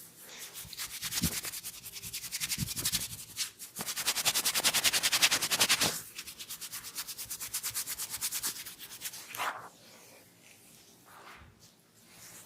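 A massaging barber's hands rubbing quickly back and forth over skin in fast, even strokes, several a second, with two short breaks; the rubbing stops a few seconds before the end.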